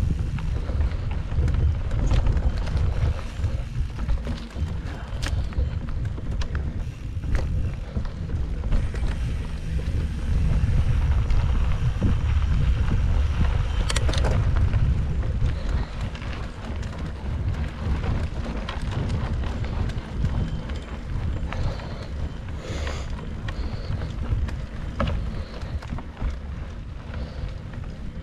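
Mountain bike riding over a dirt trail, heard as a steady rumble of wind buffeting the microphone and tyres on the ground, with scattered clicks and rattles from the bike.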